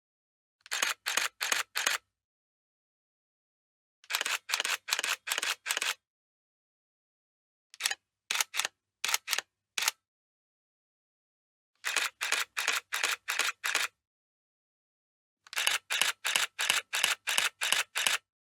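Camera shutter firing in continuous-shooting bursts: groups of about five to eleven sharp clicks at roughly four a second, with silence between the groups.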